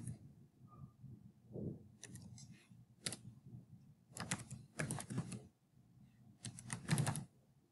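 Computer keyboard being typed on: quick runs of key clicks in several short bursts, with pauses between them.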